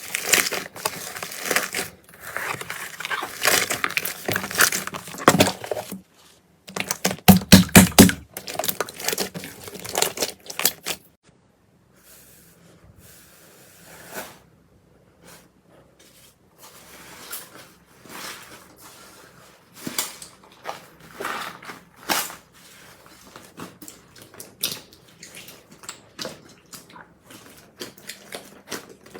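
Slime being pressed and squeezed by hand, giving crackling, crunching and squishing sounds. A run of loud snaps comes about seven seconds in, and the handling turns much quieter and sparser from about eleven seconds on.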